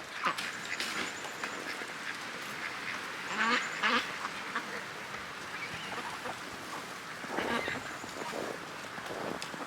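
Domestic ducks quacking: a run of raspy quacks about three to four seconds in and another short bout near eight seconds.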